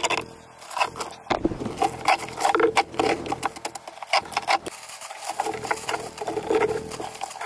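Gloved hands pulling and scraping loose chunks of rotted plywood out of a fiberglass boat floor and dropping them into a plastic trash bag: irregular crunching, knocking and rustling.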